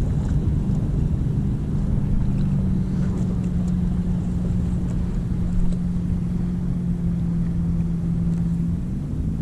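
Boat motor running steadily under wind rumble on the microphone, its even hum shifting in pitch near the end.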